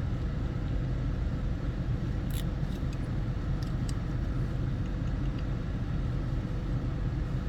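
Steady low rumble like a car running, with a few faint small clicks from handling the new plastic center console latch and its spring and pin.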